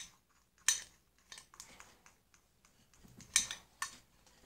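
A spoon clicking and scraping against a container while stirring slime made from glue and borax solution, in irregular sharp taps, the loudest a little past three seconds in.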